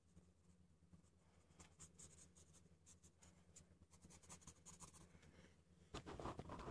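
Faint pencil strokes scratching on paper while sketching, with a louder rustle of hand and paper near the end, over a steady low hum.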